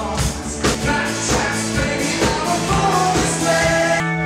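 Upbeat band music with a steady drum beat and singing; a held organ chord comes in suddenly near the end.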